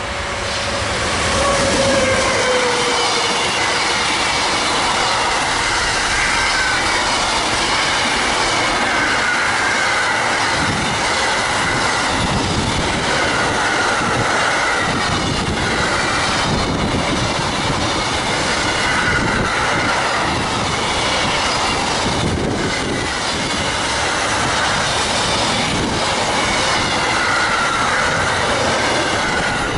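Container freight train passing close by: a steady rumble and clatter of wagons over the rails, with a falling tone as the locomotive goes past about two seconds in. High whining tones come and go throughout.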